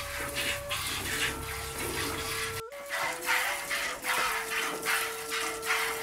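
Milk squirting into a plastic bucket as a water buffalo is milked by hand: short hissing jets about twice a second. Underneath runs background music with slow held notes, and a low hum cuts off suddenly a little after halfway.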